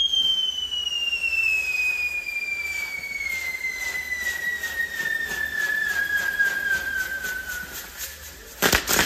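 Whistling firework on a pyrotechnic castle tower: one long whistle that falls steadily in pitch for about eight seconds, over faint crackling. A short burst of loud cracks comes near the end.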